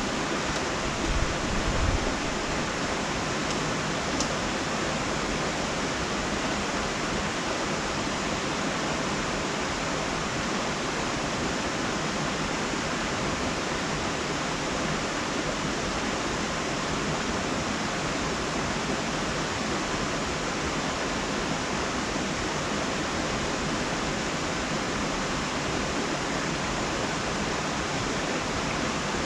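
Steady, even hiss that does not change, with a few brief low bumps about one to two seconds in.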